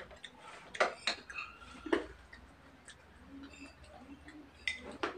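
Metal spoons clinking and scraping against plates of mung bean porridge: a few light, sharp clicks spaced irregularly, about a second apart.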